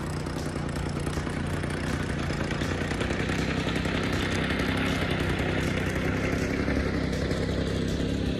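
Jacobsen Greens Mower 22 reel mower running at a steady engine speed while being pushed across grass, with a clattering from the machine; it grows somewhat louder as the mower comes closer.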